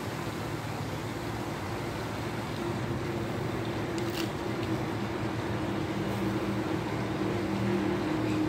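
Steady background hum with faint low engine-like tones, typical of a motor running some way off. About four seconds in there is a single light click as the die-cast toy car is handled on the wooden rail.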